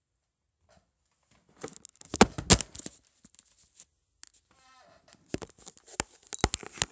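Handling noise from a phone camera being picked up and moved: a cluster of loud knocks and rubbing about two seconds in, a short pitched sound in the middle, and more sharp knocks near the end.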